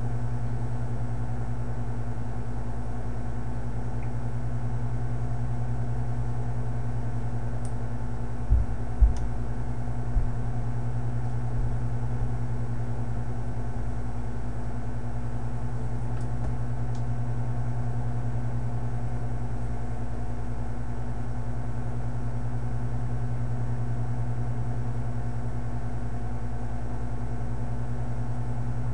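Steady low background hum with a droning pitch, the recording's room or equipment noise. Three short low thumps come about a third of the way through.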